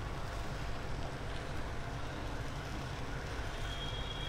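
A steady low rumble, with a thin high steady tone starting near the end.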